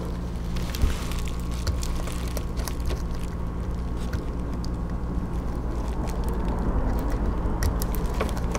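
Faint small clicks and scrapes of a fine hand tool working at a tiny jumper on a circuit board, with one slightly louder tap about a second in, over a steady low hum.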